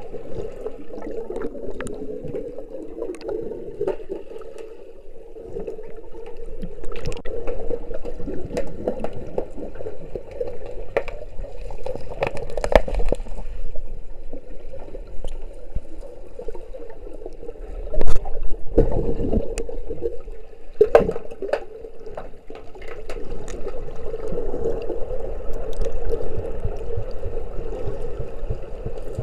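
Muffled underwater sound of a swimming pool heard with the microphone submerged: gurgling, swirling water over a steady hum, with scattered sharp clicks and knocks from underwater hockey play, the loudest a thump about 18 seconds in.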